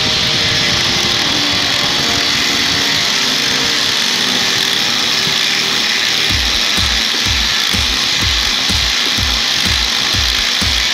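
Angle grinder running with a steady high whine as its cutting disc grinds into the armature of an electric drill. Background music with a regular beat comes in about six seconds in.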